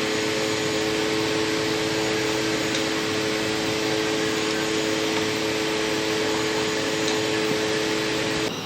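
Steady machine-like whirring hiss with a constant two-tone hum, like a running kitchen fan; it cuts off suddenly near the end.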